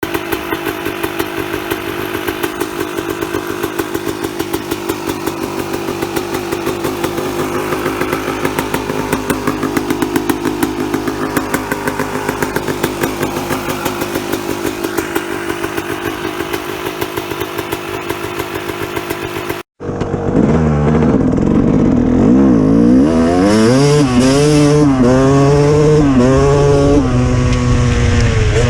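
Small engine running steadily with an even firing beat; after a sudden cut about two-thirds in, an engine revving up and down repeatedly.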